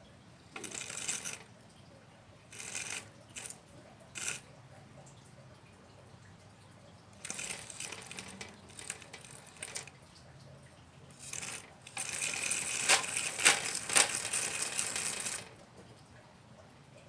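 Small stones rattling and scraping in the bucket of a 1/12-scale RC Liebherr 954 excavator, in several short bursts. The longest and loudest burst comes a few seconds from the end.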